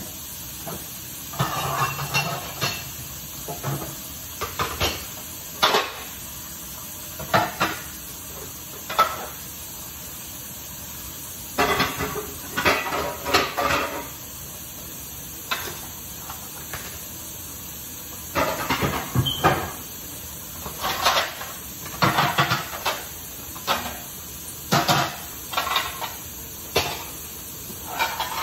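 Dishes and plates clattering and wall-cabinet doors knocking during kitchen tidying, in scattered clusters of short knocks and clinks over a steady hiss.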